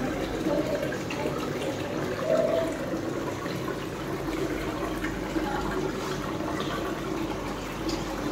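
Steady running and splashing water of a koi pond.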